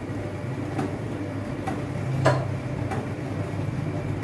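Steady low hum with a few light clicks and taps, the hum growing a little louder about two seconds in.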